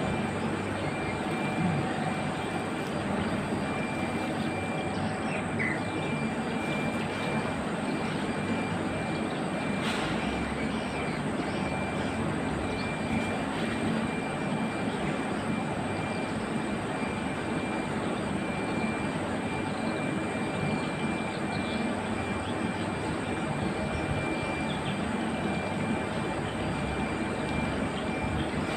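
Steady outdoor background noise, an even rush with no rhythm, with a thin high tone running through it and a single click about a third of the way in.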